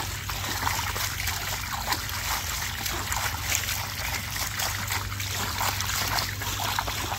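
Garden hose jet splashing into a shallow plastic kiddie pool as a dog bites and laps at the stream: continuous spattering and sloshing water.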